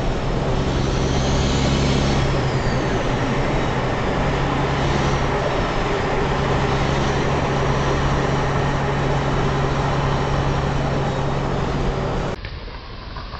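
Semi-truck's diesel engine droning steadily with road and tyre noise, heard from inside the cab at highway cruising speed. Near the end the sound drops abruptly to a quieter hiss.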